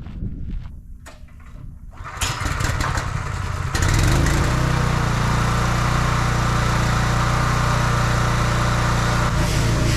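Gas-engine pressure washer starting its spray: the water hiss comes in about two seconds in, and from about four seconds the engine runs loud and steady under load with the jet spraying continuously.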